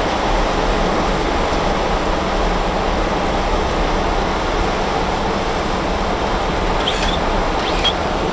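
Steady cockpit noise of an Airbus A300-600 in flight: an even rushing hiss over a low rumble. A couple of faint ticks come near the end.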